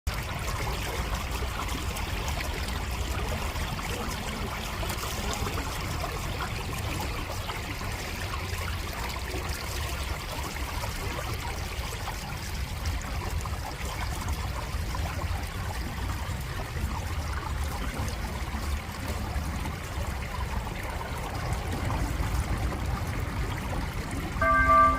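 Clear stream flowing steadily. Right at the end, the public noon chime begins with clear bell-like tones.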